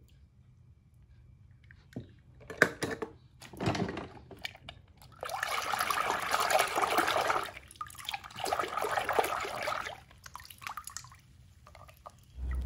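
Water sloshing and splashing as a hand swishes through a plastic tub of water: a few small splashes first, then two longer spells of sloshing, the first about two and a half seconds long.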